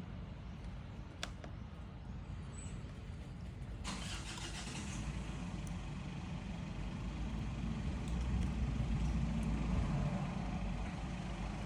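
Low rumble of an engine running, swelling louder past the middle, with a light click about a second in.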